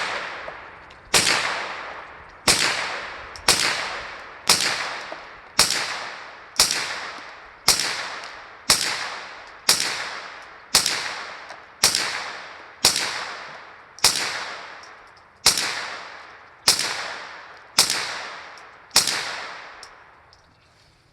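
Ruger PC9 9mm pistol-caliber carbine fired semi-automatically in a steady string of shots, about one a second, each with a long echoing tail. The string ends about 19 seconds in, as the magazine runs empty and the bolt locks open.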